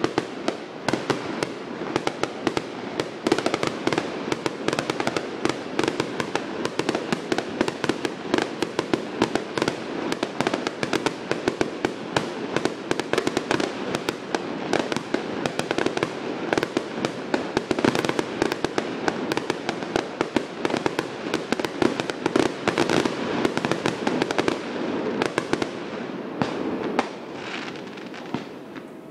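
A firework going off with rapid, continuous popping and crackling that thins out and dies down near the end.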